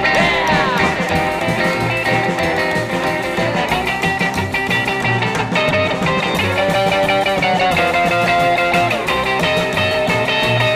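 Rock and roll music: an instrumental break led by electric guitar, with bent notes near the start, over a steady beat and no singing.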